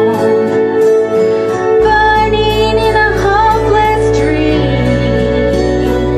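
A woman singing along with a karaoke backing track of held chords. A deep bass comes in about two seconds in, and the chord changes a little past halfway.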